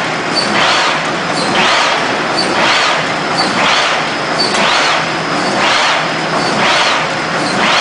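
106×76 cm sheet-fed automatic hot foil stamping machine running at speed. It cycles about once a second, each cycle a swelling hiss over a steady mechanical running noise, with a light tick between the swells.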